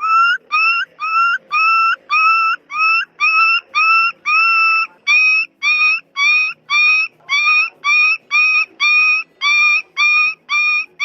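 A puppy whining in a long run of short, high-pitched whimpers, about two a second, each rising briefly at its start and then holding its pitch.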